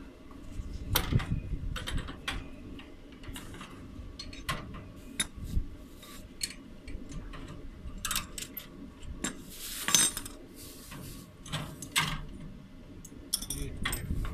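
Metal clinks and clatter of a refrigerant-pipe flaring tool, its steel flaring bar and yoke being handled, pulled apart and set down on a tile floor, with a short scrape about ten seconds in.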